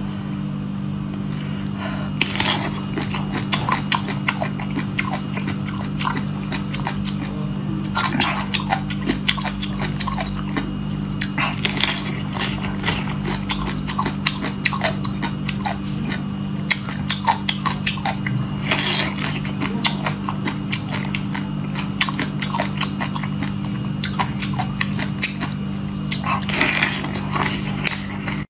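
Close-miked crunching and chewing of jellyfish head, many crisp clicks with a louder crunch every few seconds, over a steady low hum.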